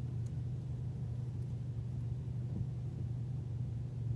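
Outboard motor idling with a steady low hum.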